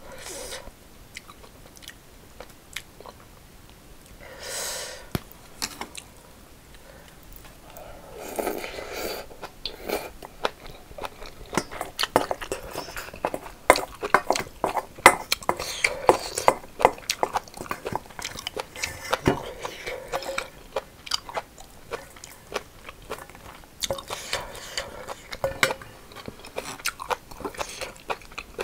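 Close-up eating sounds: chewing and crunching mouthfuls of rice mixed with crisp seasoned cucumber and braised kimchi, with wet mouth clicks and smacks. The bites come sparsely at first and grow dense and steady from about ten seconds in.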